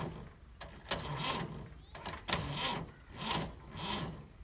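Massey Ferguson 375 diesel tractor engine being cranked by its starter motor, turning over slowly in uneven surges about once a second without catching. The starter is faulty.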